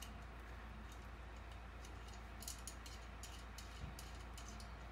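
Light clicking of small hardware parts being handled by hand, with a quick cluster of clicks about halfway through and a few faint ones earlier, over a steady low hum.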